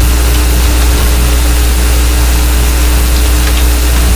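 A loud steady low hum with an even hiss over it, the constant background noise of the recording. A few faint keyboard clicks sound as text is typed.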